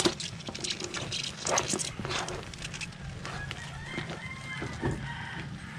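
Chickens calling, with a drawn-out, rooster-like call about three and a half to five seconds in. Under it, a wooden spatula scrapes and knocks in a wok of simmering crabs and prawns.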